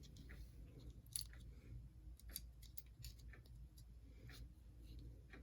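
Faint, scattered small clicks and light taps of tiny plastic model-train parts being handled as a light is pushed into place inside a model locomotive, over near silence.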